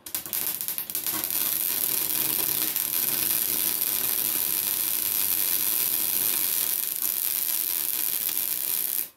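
Welding arc running a bead along a crack in a Polaris Sportsman 800's exhaust: a steady crackling hiss that starts suddenly, sputtering for about the first second, and cuts off abruptly near the end.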